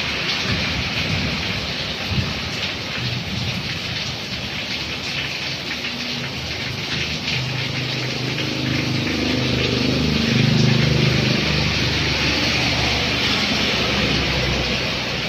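Heavy rain hissing steadily on the road and awning. In the second half a truck's engine grows louder and passes by on the wet road.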